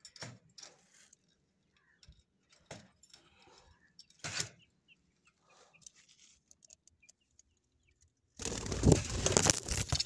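Scattered light clicks and rattles of a wire-mesh cage and wooden nest box being handled, then near the end a loud burst of rustling and knocking right on the phone's microphone as the phone is jostled when a parrot takes off.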